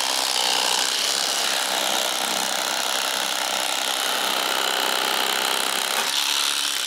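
Electric fillet knife running steadily as its serrated blades cut through crappie, separating the fillets from the skin. The sound changes slightly about six seconds in.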